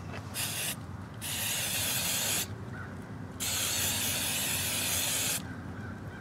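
Aerosol can of hairspray spraying in three hissing bursts: a short one about half a second in, then two longer ones of about one and two seconds.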